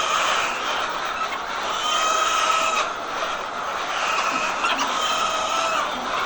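A large flock of laying hens clucking and calling together in a continuous din, with longer drawn-out calls standing out every second or two.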